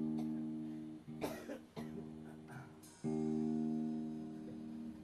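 Hollow-body electric guitar strumming single chords and letting each ring, about one second and then about two, with a short scratchy muted strum between them.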